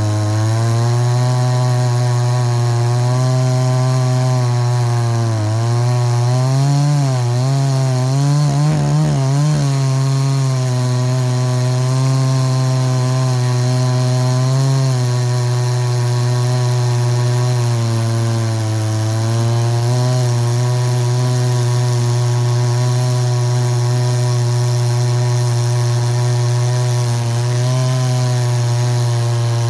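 Two-stroke chainsaw with a 36-inch bar and a Husqvarna C85 chain reground into a milling (ripping) chain, running at high speed under load through a rip cut. The engine note dips and wavers briefly a few seconds in, then holds steady.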